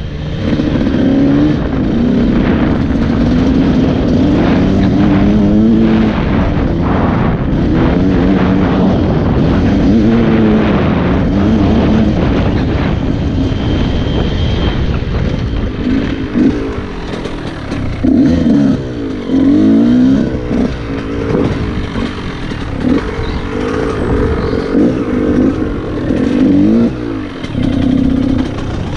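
KTM 125 EXC two-stroke enduro engine being ridden hard, its pitch climbing and falling as the throttle is worked and gears change. In the second half the revs swing up and down more sharply and often.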